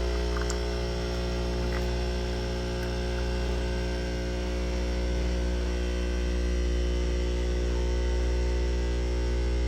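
Nespresso CitiZ coffee machine's vibratory pump running steadily through a brew, a loud, even electric buzz with many overtones as it pushes water through the capsule.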